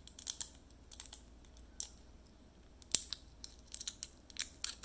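Fingertips picking at the top of a serum dropper bottle to take off a piece of packaging left on it: a string of small, irregular clicks and scratches, the sharpest about three seconds in.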